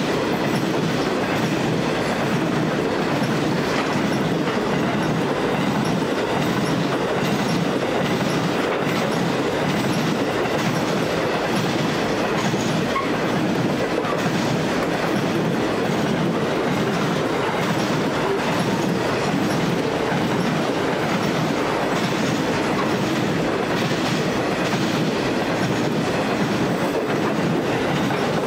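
Loaded grain hopper wagons of a long freight train rolling past, a steady rumble of steel wheels on rail with faint clacks over the rail joints.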